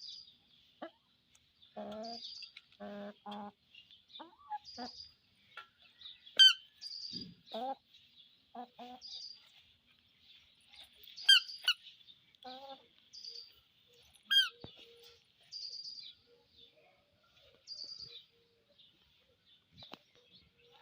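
Chickens clucking in short calls while small birds chirp, with short high chirps repeating about every two seconds and three louder, sharp falling calls.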